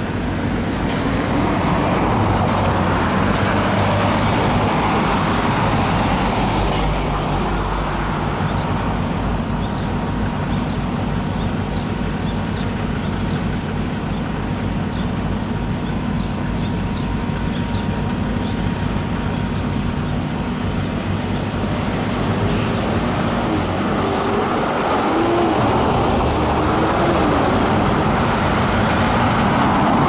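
Road traffic at a street intersection: cars and larger vehicles passing, with tyre and engine noise and a steady low engine hum throughout.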